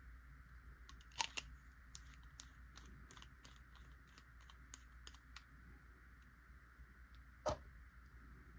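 Faint small clicks and taps of a fountain pen being handled as it is filled and wiped, with a sharper click about a second in and another, louder one near the end.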